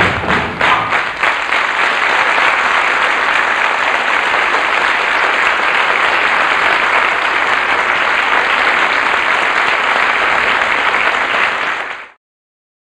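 Audience applauding: a few even beats at first, then steady, dense clapping that cuts off suddenly near the end.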